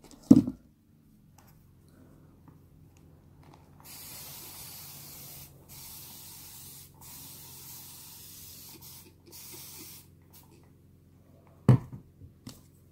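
A hairbrush drawn through a damp section of human-hair wig: four hissing strokes, each a second or more long, starting about four seconds in. A thump just after the start, the loudest sound, and another thump with a couple of small knocks near the end.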